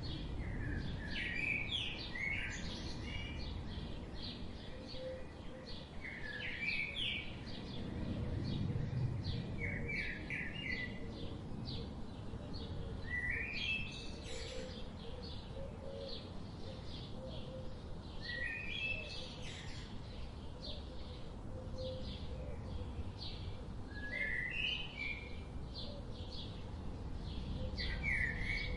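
Birds singing outdoors. One bird repeats a short, quick song phrase every four to six seconds, and other birds make many short chirps throughout, all over a steady low rumble of background noise.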